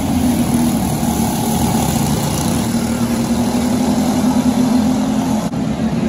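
Racing kart engines running on track at speed, holding a fairly steady note.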